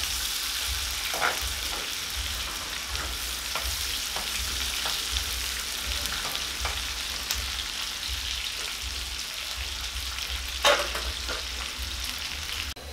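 Marinated tilapia frying in oil with onions and green peppers, a steady sizzle, with a slotted metal spatula clicking and scraping against the frying pan now and then. A louder clack comes near the end, and the sizzle cuts off suddenly just before the close.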